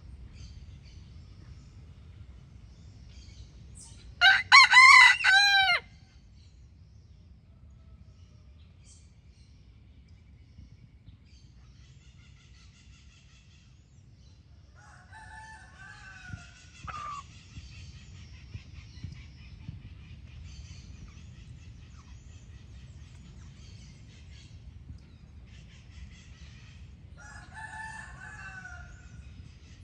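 Rooster crowing: one loud cock-a-doodle-doo about four seconds in, lasting about a second and a half. Fainter crowing follows around the middle and again near the end, over a steady low background rumble.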